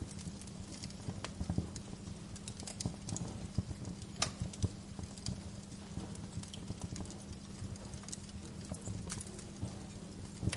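Wood fire crackling in a fireplace: irregular snaps and pops over a steady low rumble, with a few sharper pops about four seconds in.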